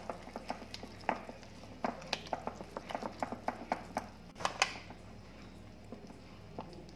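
Wooden spoon stirring flour into wet dough in a bowl, knocking against the bowl's side in a quick run of clicks, about four or five a second. The knocking dies away about five seconds in.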